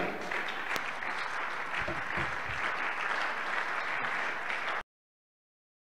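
Audience applauding, an even patter of many hands clapping that cuts off abruptly into silence near the end.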